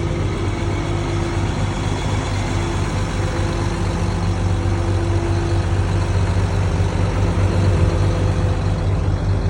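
Heavy diesel truck engines running steadily with a deep, even hum, getting slightly louder in the second half. These are the concrete mixer and pump trucks at work.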